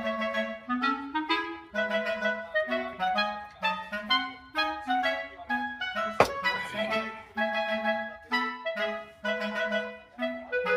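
Background music: a light melody of short notes played on a woodwind, with one sharp click about six seconds in.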